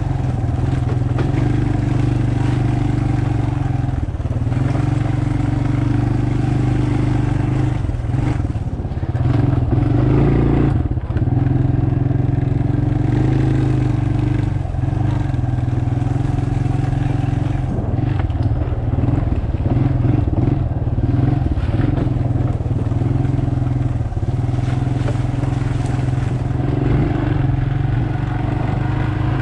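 Dirt bike engine running steadily at low, fairly even revs while riding a woods trail, with occasional short rises in pitch and scattered knocks and rattles from the bike over the rough ground.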